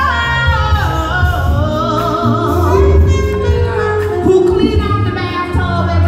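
A woman singing long, wavering notes with vibrato and no clear words, over live band accompaniment with a steady low bass.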